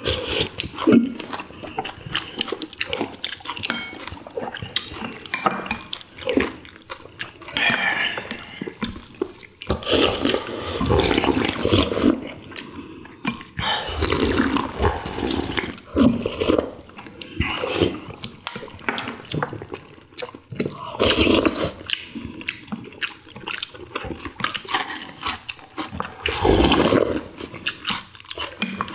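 People eating ginseng chicken soup: slurping broth from bowls and chewing, with frequent clicks of chopsticks and spoons against ceramic bowls. Near the start, liquor is poured from a glass bottle into a glass.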